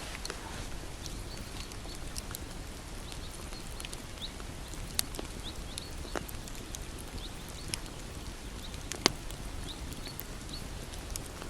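Campfire burning with irregular crackles and sharp pops, the loudest pop about nine seconds in, over a low steady rush. Short high chirps repeat every second or so behind it.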